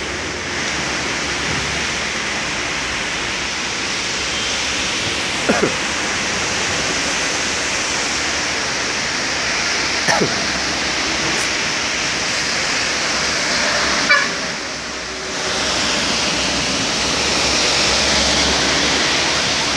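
Steady hiss of rain falling, with a few brief sharp sounds over it.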